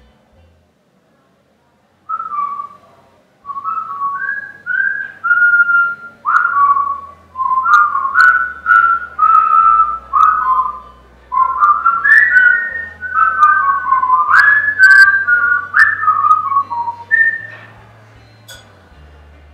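Whistling a tune of short, separate notes, starting about two seconds in.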